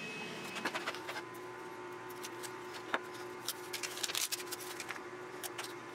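Paper stencils being peeled off cut wooden bandsaw-box parts: irregular crackling and sharp ticks, over a faint steady hum.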